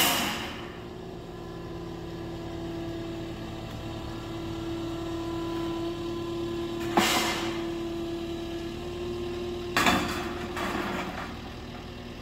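The diesel engine of a Caterpillar compact track loader runs steadily. Three sharp rattling clatters of sheet-metal roofing panels being handled break in: one at the start, one about seven seconds in and one near ten seconds.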